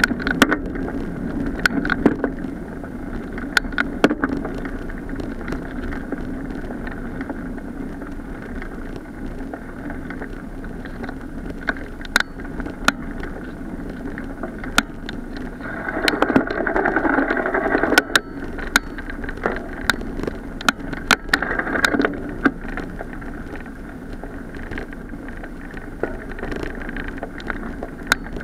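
Bicycle tyres rolling over a gravel path, a steady muffled rumble, with frequent sharp clicks and knocks as the bike jolts over bumps. The rumble grows louder for about two seconds a little past halfway.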